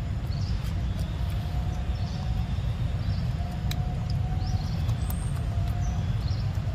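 Steady low rumble of outdoor background noise, with faint short high chirps several times and a few sharp clicks.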